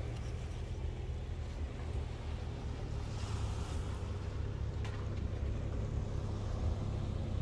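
Steady, gusting low rumble of wind buffeting the microphone on an open beach, with a couple of faint clicks of a knife cutting into watermelon.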